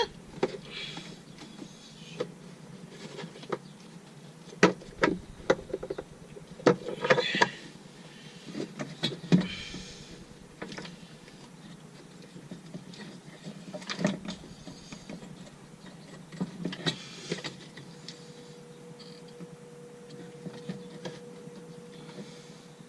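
Scattered sharp clicks, knocks and short rustles of hand work on parts, irregular and spread through the stretch, with a faint steady hum in the last few seconds.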